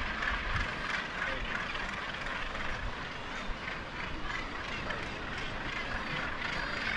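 Seabird colony calling: a dense, unbroken chorus of many birds, with wind buffeting the microphone.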